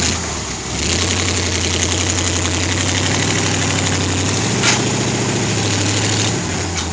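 1978 full-size Jeep Cherokee's engine running steadily at low revs, with a brief sharp click about two-thirds of the way through.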